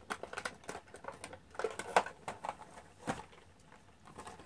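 Plastic packaging being handled as a diecast model truck is worked loose from it: irregular light clicks, ticks and crinkles, with a couple of sharper clicks partway through.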